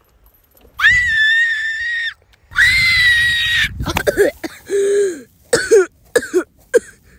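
A person's voice screaming twice, long and high-pitched, then a run of short groans that fall in pitch: a fall and a hard, painful landing acted out.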